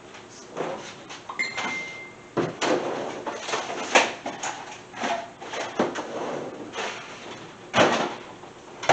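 Kitchen doors and drawers opening and shutting with knocks and clatter as butter is fetched, with a short high beep about a second and a half in and a louder bang near the end.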